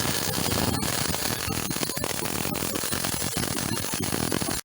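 Electric welding arc on an automated welding machine, running a continuous seam around a torque converter's cover: a loud, steady crackle full of fine pops, cutting off suddenly at the end.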